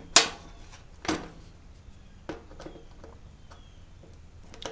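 Sharp clicks and taps of hand tools and plug parts being handled while wiring a welder plug, about six in all, the loudest just after the start and another about a second in, over a faint steady hum.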